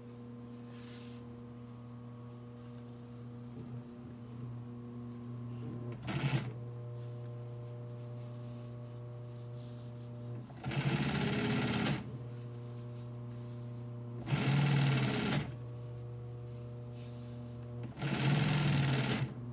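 Juki industrial sewing machine stitching narrow fabric strips in short runs: a brief burst about six seconds in, then three runs of a second or so each, near the middle, after two-thirds and near the end. A steady hum continues between the runs.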